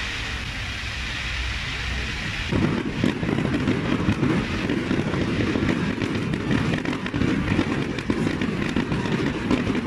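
Fireworks display: a dense crackling of many bursts, growing thicker and a little louder about two and a half seconds in.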